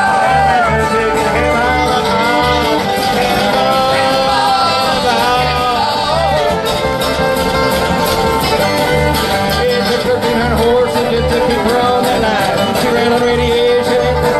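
Live old-time string band playing an instrumental break: a fiddle carries the melody over strummed guitar and mandolin, with a steady low beat underneath.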